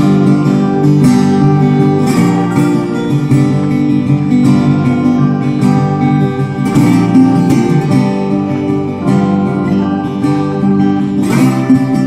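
Background music: acoustic guitar plucked and strummed in a steady rhythm.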